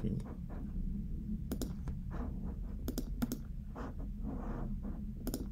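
Computer mouse clicks, several in quick pairs, over a steady low hum.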